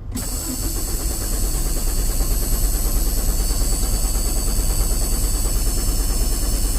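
Cummins 5.9-litre inline-six diesel engine cranking steadily on its starter motor without catching: the crank-no-start fault.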